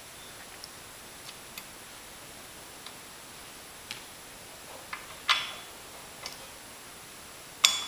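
Small metal clicks and taps of a steel bolt and washer being handled and fitted into the control stick base. A few faint ticks, a louder click about five seconds in, and the sharpest clicks just before the end.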